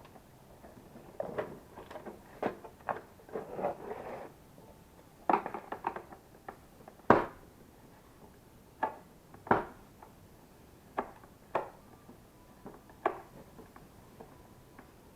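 Irregular clicks, knocks and short scrapes of plastic parts being handled as an LG bagless vacuum cleaner is taken apart, with the sharpest knock about halfway through.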